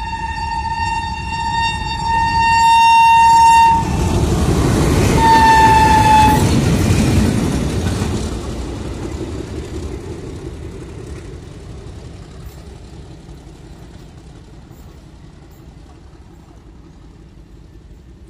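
Locomotives running light, without coaches, sound one long horn blast that cuts off about four seconds in, then a second, shorter blast as they pass. Their running rumble peaks as they go by and then fades away as they recede.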